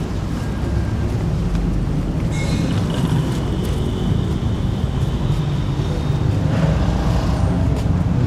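Steady low rumble, with faint high tones a few seconds in.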